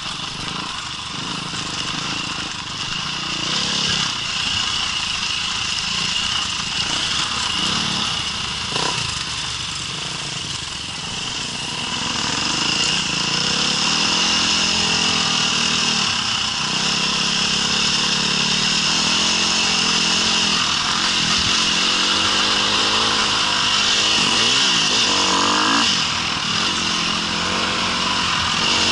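Off-road vehicle engine running, its pitch rising and falling with the throttle and getting louder about twelve seconds in.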